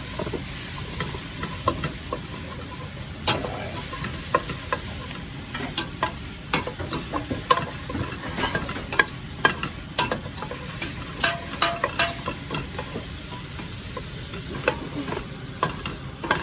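Curry seasoning of onion, garlic, pepper and curry powder frying in a hot pot with a steady sizzle, while a utensil stirs it, knocking and scraping against the pot many times.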